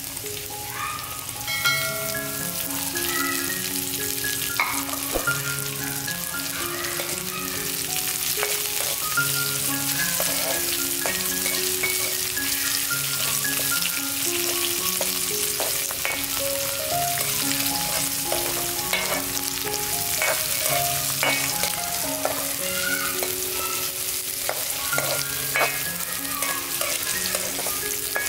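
Sliced lemongrass, garlic, shallots and chillies sizzling in hot oil in a metal wok while a spatula stirs them, with scattered clicks and scrapes of the spatula on the pan. A slow, gentle background melody plays underneath.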